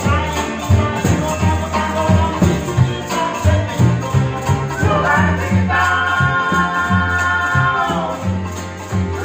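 Vanuatu string band playing: strummed acoustic guitars and ukulele over a plucked bush bass, with a rattling shaker keeping a quick steady beat and men singing together. The voices hold one long chord about six seconds in.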